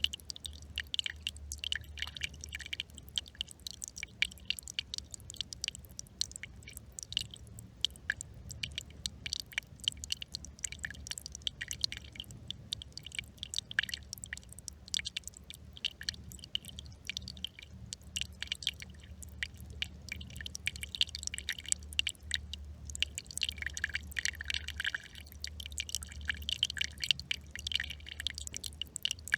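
Small brook trickling: a dense, irregular patter of little splashes and drips, over a steady low hum.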